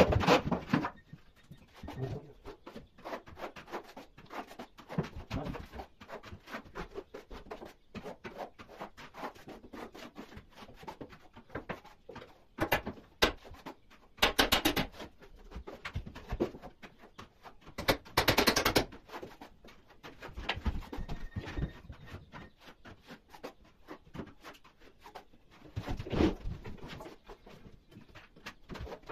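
Hand plastering with Rotband gypsum plaster: tools scraping and tapping on the wall in irregular strokes, with a few louder scrapes about halfway through.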